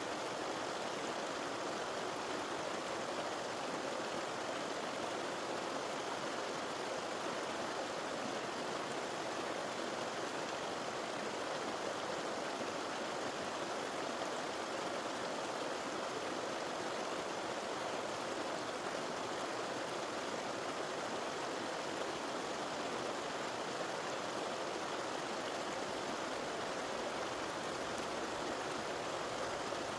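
River water flowing steadily, an even rushing with no changes.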